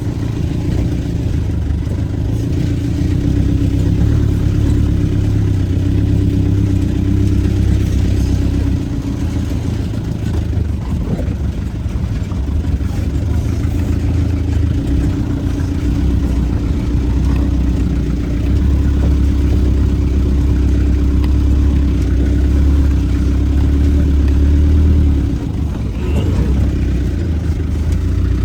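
Vehicle engine running steadily while driving off-road, its pitch dipping and rising a few times as the engine speed changes.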